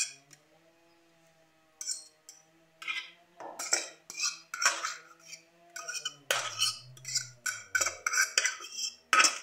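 Metal kitchen utensils clinking and scraping against metal cookware in quick, irregular strokes, starting about two seconds in.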